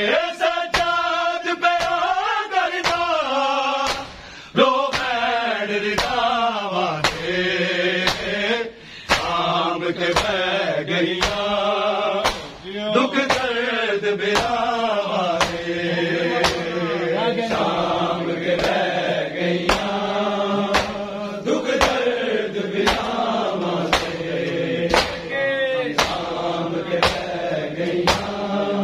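Male voices chanting a noha, a Shia mourning lament, over a steady beat of hand slaps on bare chests (matam), about one and a half slaps a second.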